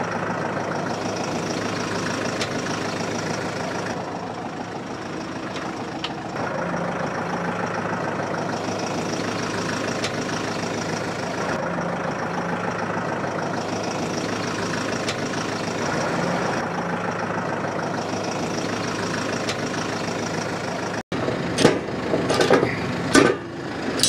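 New Holland tractor's diesel engine idling steadily. Near the end, a few loud metal clanks as a steel pallet fork is handled against the loader.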